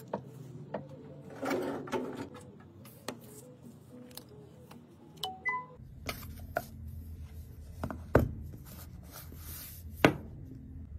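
Handling noise of a smartphone bound in rubber bands being turned over in the hands: scattered taps, rubs and clicks, with two sharp knocks in the second half, the last as the phone is set down in its box.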